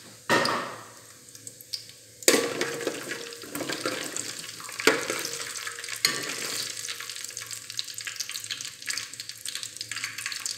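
Whole spices (cumin seeds, black cardamom, cinnamon) frying in hot oil in an aluminium pot, sizzling and crackling as a ladle stirs them. There are sudden louder bursts near the start and about two seconds in, and a few sharp knocks of the ladle against the pot.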